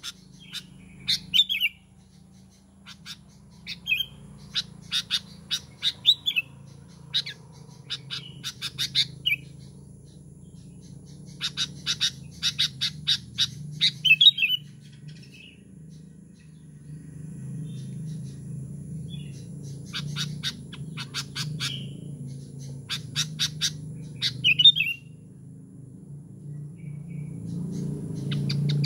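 Sooty-headed bulbul (kutilang) calling in a lively run: repeated bursts of quick chattering notes mixed with short whistled notes, with pauses between bursts. A steady low hum runs underneath and grows louder in the second half.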